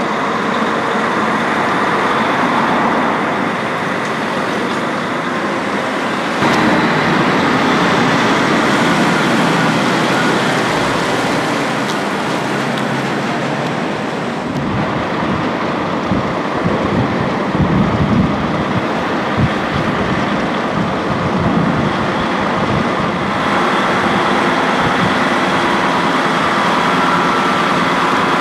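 City street traffic with a heavy diesel lorry, a DAF XF tractor unit hauling a low-loader trailer, running as it drives by. The sound changes abruptly three times.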